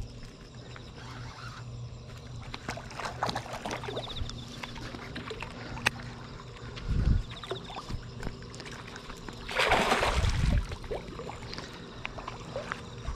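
A lure being worked on a baitcasting rod and reel over canal water: faint clicks and handling noise over a low steady hum, with a short burst of water splashing about ten seconds in.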